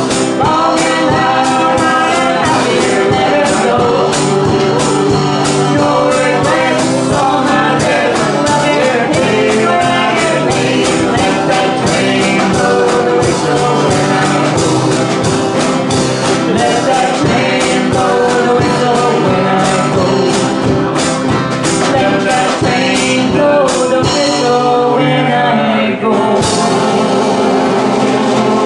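Live folk band: a woman singing over banjo, acoustic guitar and harmonica, with drums and tambourine keeping a steady beat. The high percussion drops out for a moment near the end, then comes back.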